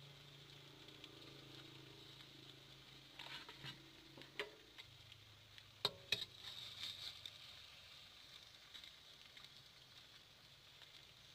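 Faint sizzling of battered pieces frying in a wok, with a few short clicks of a metal spatula against the pan between about three and six and a half seconds in, over a low steady hum.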